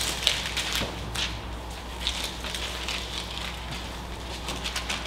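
Bible pages being leafed through and rustling as the passage is looked up: a scatter of soft, irregular paper crackles over a low steady hum.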